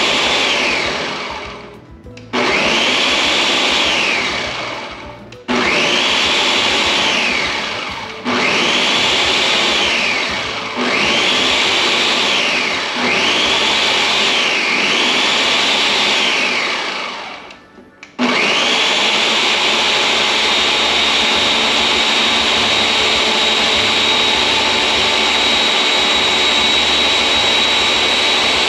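Countertop blender puréeing hot curry sauce, pulsed on and off several times, each time whining up to speed, running a couple of seconds and winding down. From about two-thirds of the way in it runs continuously.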